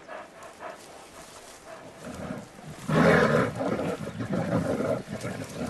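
Brown bears growling: the sound starts low about two seconds in and turns into a loud, rough growl from about three seconds in.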